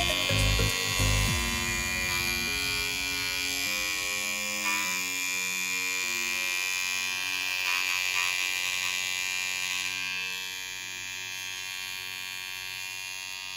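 Enchen Boost cordless hair trimmer switched on and running with a steady electric buzz and hum, under quiet background music.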